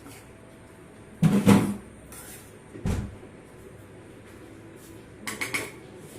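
Kitchen clatter from a cooking pot and utensils: a loud knock and scrape a little over a second in, a shorter low thump about three seconds in, and a few faint knocks near the end.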